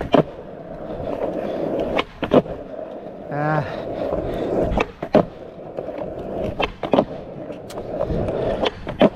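Skateboard wheels rolling on pavement, broken by sharp clacks of the tail popping and the board landing, several times in pairs a fraction of a second apart, as pop shuv-its are tried. A short vocal exclamation is heard about three and a half seconds in.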